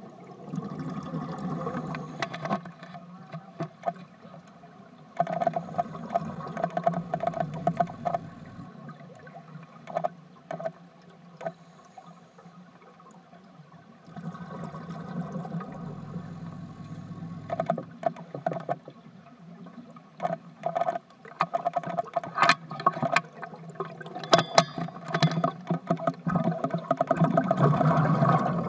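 Underwater sound of a scuba diver's breathing: exhaled bubbles gurgling and crackling from the regulator in bouts a few seconds long, with quieter stretches between.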